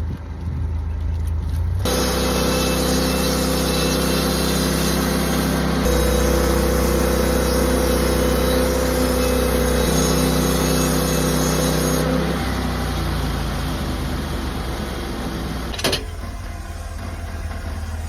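Sawmill engine running, then a loud cutting pass from about two seconds in to about twelve seconds in as the saw works through a log. Afterwards the engine settles back to a lower run, with a single sharp knock near the end.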